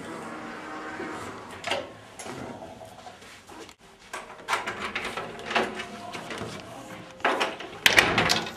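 A door being handled: several sudden clatters and knocks of a latch and the door moving, loudest near the end.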